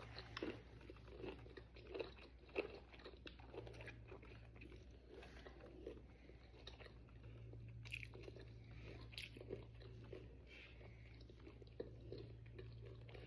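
Faint crunching bites and chewing of crispy fried pickles, a scatter of irregular crisp crunches, over a steady low hum.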